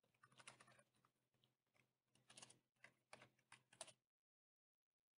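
Faint computer keyboard typing: a few short runs of key clicks that stop about four seconds in.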